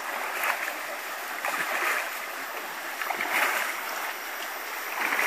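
River water splashing as people throw and scoop water over bathing elephants: a steady wash of moving water with several louder splashes at irregular moments.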